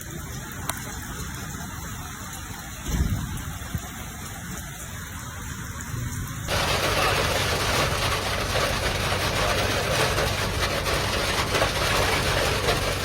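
Hailstorm: hail and heavy rain drumming down as a loud, dense clatter that starts abruptly about six and a half seconds in, after a quieter low rumble with a single thud about three seconds in.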